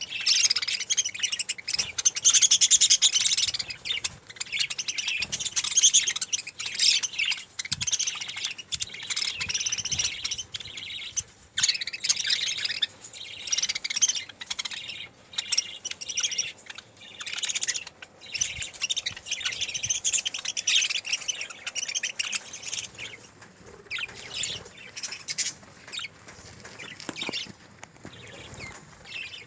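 Budgerigars chirping and chattering with rapid overlapping calls and no pause, easing off in the last few seconds.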